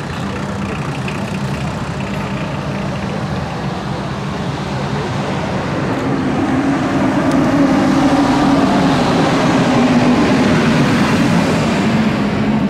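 Classic cars driving slowly past one after another with their engines running: a first-generation Volkswagen Golf, then a 1970s Ford Taunus coupe. The engine sound swells about halfway through as the Ford passes close, then fades near the end.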